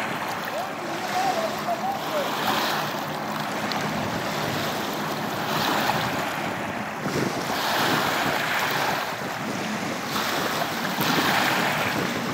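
River water washing against the bank in surges every few seconds, with wind buffeting the microphone.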